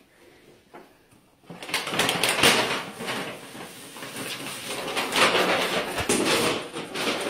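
Paper shopping bag rustling and crinkling as a cat walks around inside it, with the bag scraping on the floor. It starts about a second and a half in and runs as a dense, crackly noise.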